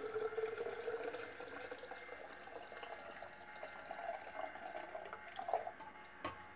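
Warm pre-heat water pouring out of a film developing tank into a tall plastic measuring cylinder, draining the tank after its pre-heat step. The pitch of the filling rises as the cylinder fills, then the stream thins and stops a little before the end, leaving a few drips.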